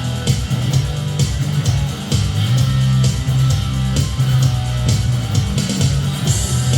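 Jet JS400 electric guitar played through a Laney HCM15R combo amp, along with a rock backing track with a steady drum beat and bass.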